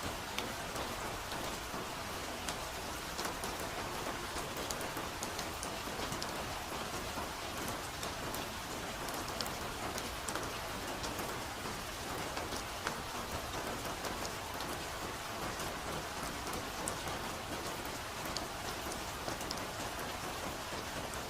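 Steady soft rain falling on leaves and the ground, an even hiss scattered with many small sharp drop ticks.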